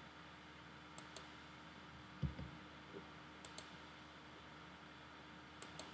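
Computer mouse button clicks: three pairs of quick, light clicks a couple of seconds apart, as dimensions are selected on screen. There is also one soft low thump a little over two seconds in, over a faint steady hum.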